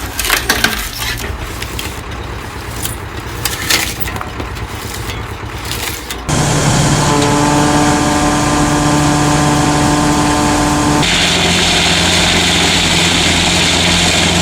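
Wood chipper at work: wood cracking and snapping as it is chipped over an engine hum. About six seconds in this gives way to a louder, steady machine drone with a held whine, which turns hissier a few seconds later.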